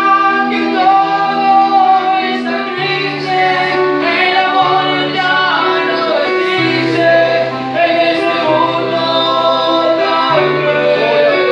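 Men singing a Christian hymn through microphones, with an electronic keyboard playing held chords and a steady bass line that changes note every second or two.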